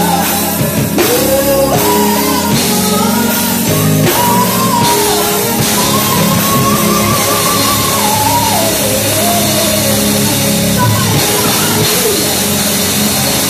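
Gospel singing by a woman through a microphone and PA, long sliding sung notes over a live church band with drums and guitar.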